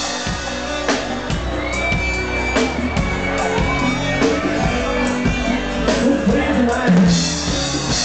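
Live sertanejo band playing an instrumental passage between sung lines, with drum kit hits and a sustained melodic lead, and crowd voices mixed in.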